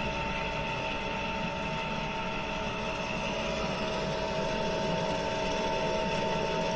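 Coffee roasting machine running steadily, its rotating drum and fan whirring with two steady whining tones, heard from outside the machine while the beans roast toward first crack.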